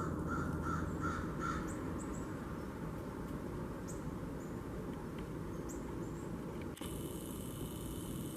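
Blue jay giving a quick run of about five short, harsh calls in the first second and a half, with a few faint high chirps scattered after. A steady low rumble runs underneath, and a hiss rises near the end.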